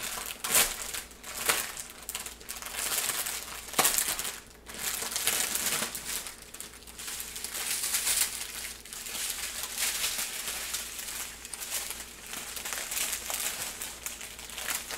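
Clear plastic packaging crinkling as an outer bag is worked open and pulled off a strip of small sealed bags, with a few sharper crackles in the first four seconds.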